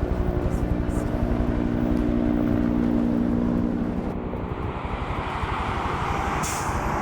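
Firefighting helicopter flying, its rotor pulsing rapidly under a steady engine tone. About four seconds in the tone fades and a broader rushing noise builds.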